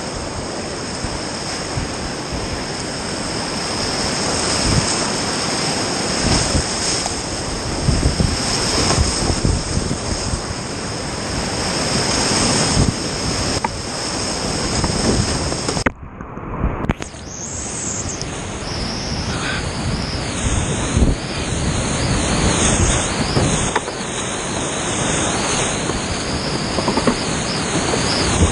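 Loud rushing whitewater of a steep river rapid, heard close up from a kayak, with irregular surges of splashing. About halfway through, the sound briefly cuts out and returns muffled.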